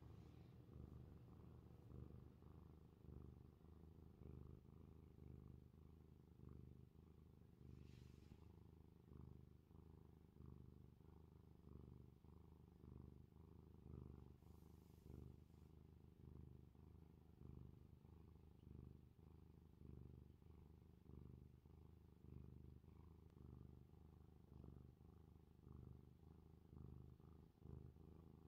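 Tabby cat purring faintly and steadily, the purr swelling and fading in waves about once a second with its breathing.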